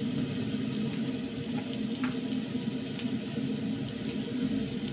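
Steady low rumbling hiss of a pot heating on the stove, with a few faint light clicks as small items are handled.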